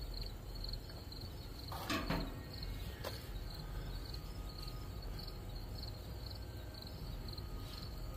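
Insect chirping in an even rhythm, a high-pitched chirp about twice a second. A brief louder noise comes about two seconds in, and a single click about a second later.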